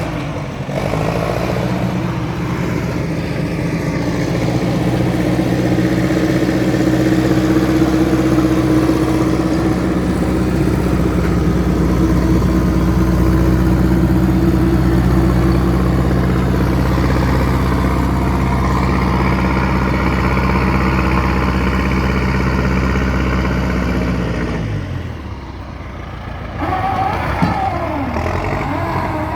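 Log skidder's diesel engine running steadily under power, then dropping off about 25 seconds in and picking up again with a wavering whine near the end.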